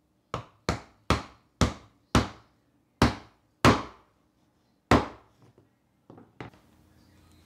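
Hammer striking a scrap wood block to drive a ball bearing into a drilled hole in a plywood shaft support: eight sharp blows, unevenly spaced over about five seconds, then two lighter knocks as the bearing seats.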